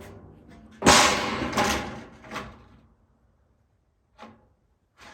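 Sheet-metal roofing panel clattering as it is handled: a loud crash about a second in that rings on briefly, then two smaller bangs, then quiet.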